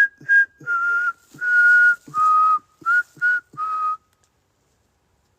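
Someone whistling a short tune of about eight breathy notes that step down in pitch overall. The whistling is loud and stops abruptly about four seconds in.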